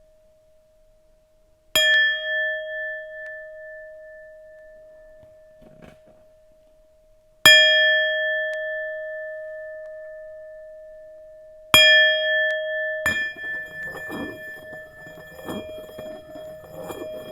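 Tibetan singing bowl struck three times with a wooden mallet, a few seconds apart. Each strike rings on in a steady, slowly fading tone with higher overtones. After the third strike a rougher, wavering scraping sound joins the ringing.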